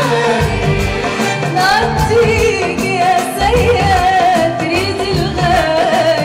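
Live Arabic tarab music: a woman singing ornamented, wavering melodic lines over an orchestra of bowed strings, oud and keyboards with a pulsing bass.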